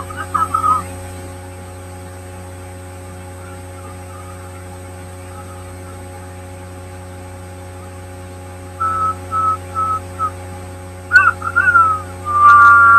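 A steady low electrical hum, then, about nine seconds in, a few short whistled notes at one pitch. Louder gliding whistle-like tones follow near the end.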